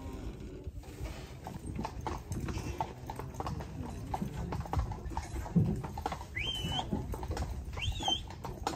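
A horse's hooves clip-clopping on the road as it pulls a buggy, with the cart rattling along. A louder thump comes about five and a half seconds in, and two short rising chirps come near the end.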